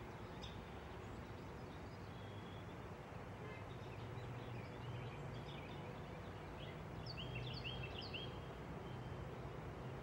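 Outdoor ambience: a steady low hum under scattered bird chirps, with a quick run of three or four short, repeated bird notes about seven to eight seconds in.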